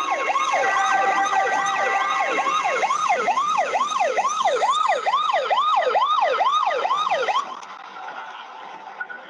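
Emergency-vehicle siren in a fast yelp, its pitch sweeping up and down about twice a second, cutting off suddenly about seven seconds in.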